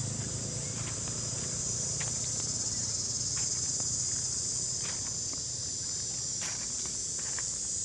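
Steady high-pitched insect chorus, with a few soft crackles of dry leaves scattered through it as a macaque walks over the leaf litter.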